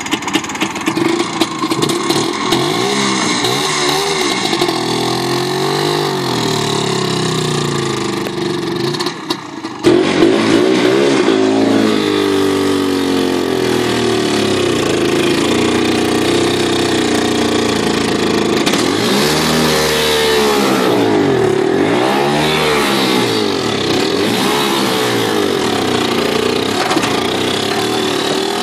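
IZh Planeta 5 motorcycle's single-cylinder two-stroke engine running, its speed rising and falling. From about ten seconds in it is louder, pulling a heavily loaded trailer.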